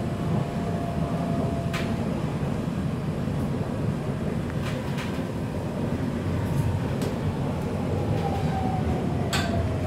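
Breda VLC tram heard from inside the passenger car while running: a steady low rumble with a few sharp clicks, and a faint whine that falls slowly in pitch near the end.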